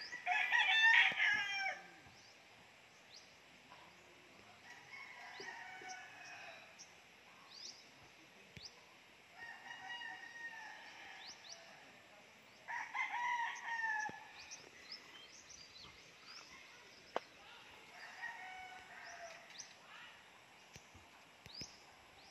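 Roosters crowing in turn, about six crows a few seconds apart; the first is close and the loudest, and the others are fainter. Small birds give short high chirps throughout.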